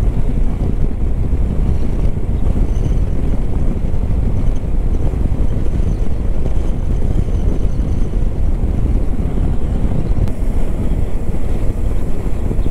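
Steady wind rush on the microphone of a Hero Xpulse 200 4V motorcycle being ridden, mixed with the bike's running noise.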